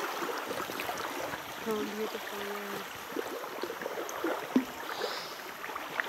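River water swishing and gurgling around a poled raft, with scattered small knocks and one sharp thump about four and a half seconds in. A brief low hum sounds about two seconds in.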